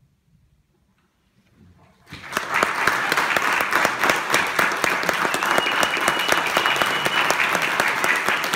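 Near silence for about two seconds, then an audience bursts into steady applause, many hands clapping at once.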